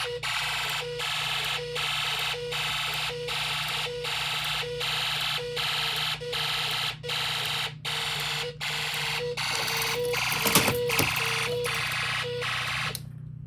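Snap Circuits fire alarm circuit sounding a harsh pulsing alarm, a little over one pulse a second, with a short tone between pulses. A loud click comes about ten and a half seconds in, and the alarm cuts off suddenly near the end.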